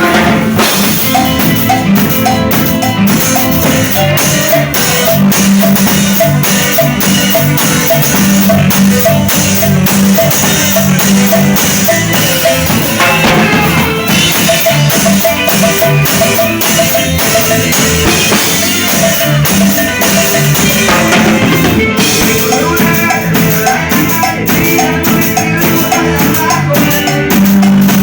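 Live cumbia band music: drums playing breaks over a steady percussion groove, with repeating melodic notes on top.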